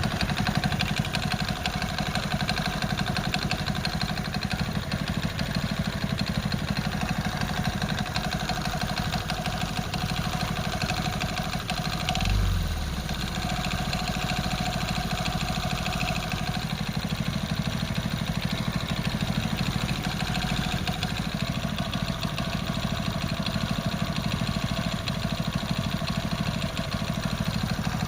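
Single-cylinder engine of a Hero motorcycle running steadily, with an abnormal noise that the mechanic puts down to the crankshaft. A brief low thump about twelve seconds in.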